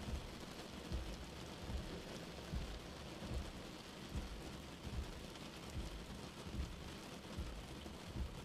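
Steady rain on a windscreen, with slow windscreen wipers sweeping back and forth. Each stroke gives a low thump, evenly about every 0.8 seconds.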